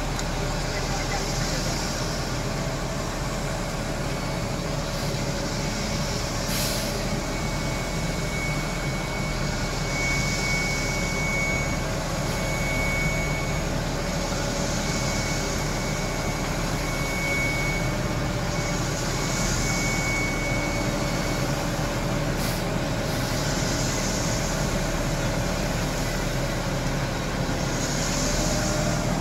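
Ready-mix concrete mixer truck's diesel engine running steadily, with a high hiss that swells every four to five seconds.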